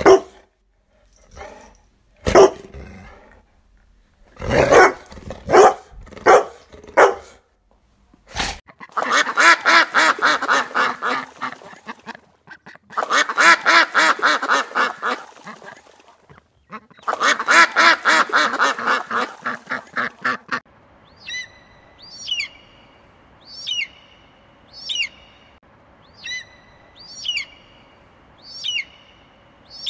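A dog barking: single barks, then a quick run of barks. Next, ducks quacking in three rapid runs of about three seconds each. Then an eagle's high, sharp calls, repeated about once a second.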